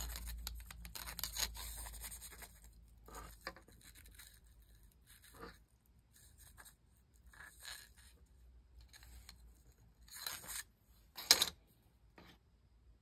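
Bamboo drinking straws being handled: light scrapes, rubs and knocks of the hollow bamboo against other straws and a wire cleaning brush, with a sharper knock near the end.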